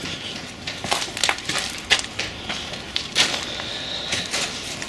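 Footsteps crunching on loose gravel and debris, uneven crunches several times a second.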